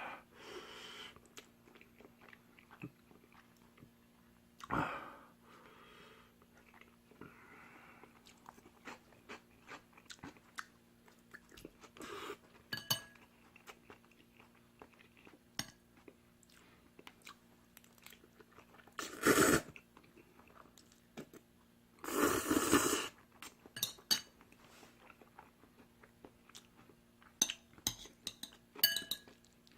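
Close-miked eating of spicy stir-fried instant noodles: soft chewing and mouth clicks throughout, with two louder noisy bursts of eating about 19 and 22 seconds in, and sharp clicks of utensils near the end.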